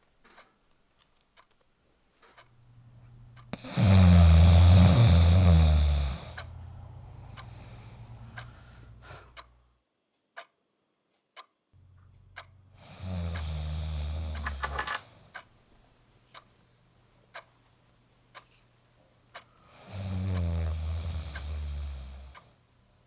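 A person snoring loudly in three long, drawn-out bouts, the first the loudest, with a clock ticking about once a second in the quiet between them. Midway the sound drops out completely for about two seconds.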